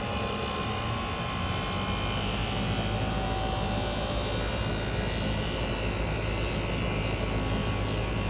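1993 Carrier Tech2000 1.5-ton heat pump outdoor unit running: a steady compressor hum with its fan turning. A low rumble builds about a second and a half in.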